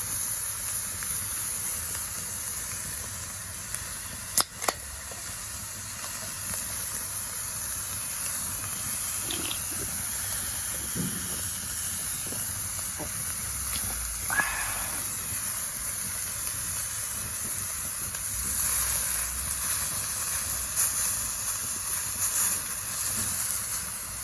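Steady hissing sizzle of food cooking over a campfire, with a sharp click a little over four seconds in and a louder stretch near the end.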